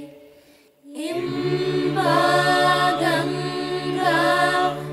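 Mixed choir singing a sustained chord over a steady low note. It enters about a second in, after a short break in which the previous chord dies away almost to silence.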